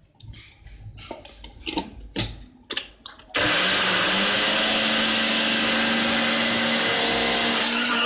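A small electric chopper's plastic bowl and top are knocked and clicked into place. About three seconds in, the motor starts and runs loud and steady with a constant hum, chopping bread slices into crumbs.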